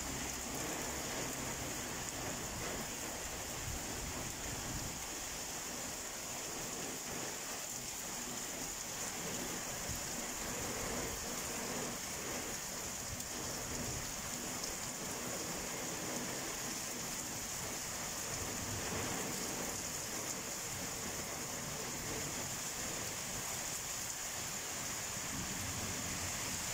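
Heavy rain pouring steadily, a continuous hiss, with a low rumble of thunder at the start and again near the end.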